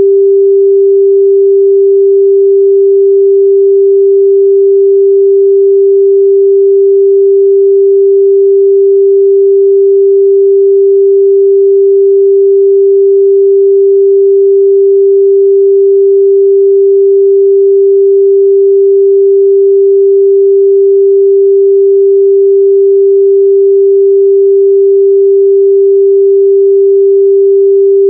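A steady, loud 394 Hz sine-wave test tone, one pure pitch held without change.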